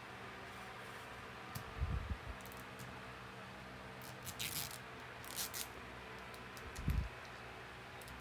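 Toy packaging being handled and opened: a few short plastic rustles and crinkles in the middle, with a couple of dull bumps.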